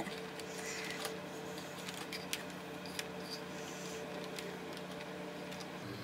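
A wired mouse's cable being pulled and handled across a desk: faint rubbing and a few light clicks and taps over a steady low hum.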